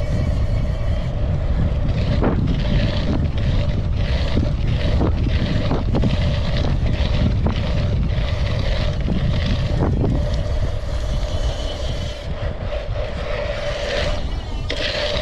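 Wind buffeting a GoPro microphone and tyres rumbling over a dirt track as a race BMX bike is ridden at speed, with occasional knocks from bumps.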